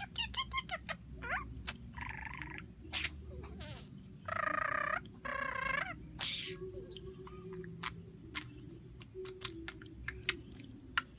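Budgerigar chattering: quick chirps, clicks and short gliding warbles, with two longer, scratchy notes a little after four seconds and again just after five.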